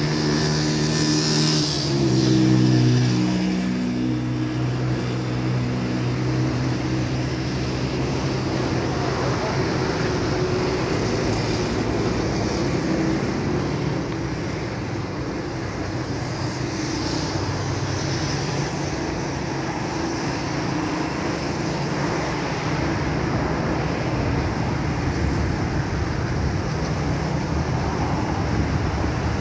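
Steady motor-vehicle noise. A pitched engine note shifts about two to three seconds in, then settles into a continuous rumble.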